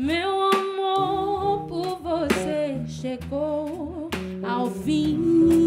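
A woman singing a melody with vibrato, backed by a six-string electric bass and a drum kit playing scattered hits.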